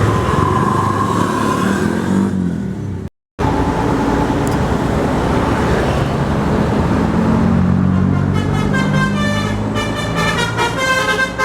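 Tour bus engine running amid traffic noise, with a brief gap about three seconds in. About eight seconds in, a multi-tone telolet bus horn starts playing a rapid melody of short stepping notes.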